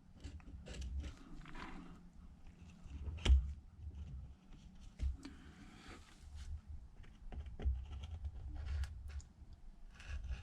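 Faint scattered clicks, light taps and rustles of small-part handling on a repair bench while glue is run around an iPad frame, with one sharper tap about three seconds in.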